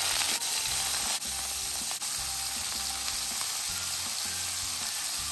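Gizzards sizzling steadily as they fry in hot oil in a pan, a dense crackling hiss.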